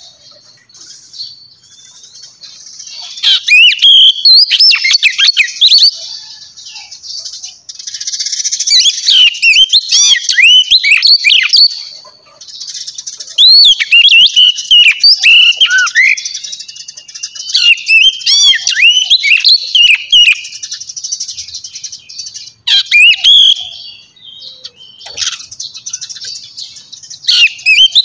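A small bird chirping and warbling close by, in rapid trills and swooping notes that come in bouts of several seconds with short pauses between them.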